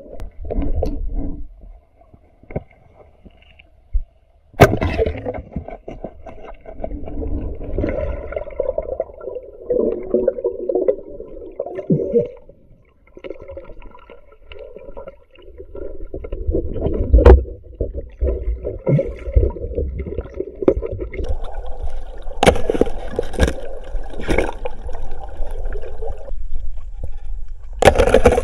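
Muffled underwater gurgling and sloshing of moving water, in uneven surges, with a few sharp knocks.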